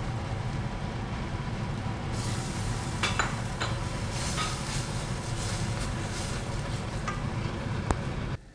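Minced meat sizzling in hot oil with onion, garlic and ginger in a stainless steel pan as it is stirred with a wooden spoon, the spoon knocking against the pan a few times. A steady low rumble runs underneath, and the sizzle cuts off suddenly near the end.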